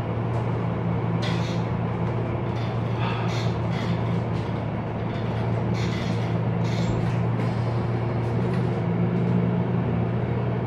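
Cabin sound of a MAN NL323F city bus on the move: the diesel engine drones steadily, with several short air-brake hisses in the first seven seconds or so.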